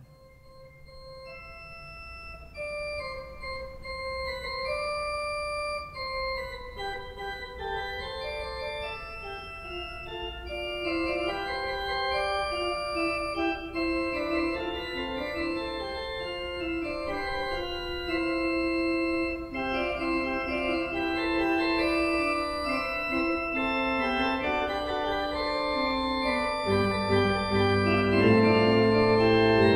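Pipe organ playing slow sustained chords, starting softly and growing steadily louder, with deep bass notes coming in near the end.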